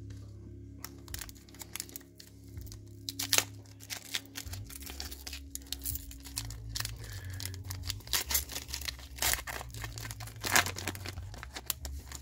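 Foil trading-card pack wrapper being crinkled and torn open, a dense run of irregular crackles that grows busier and louder after about four seconds, over background music.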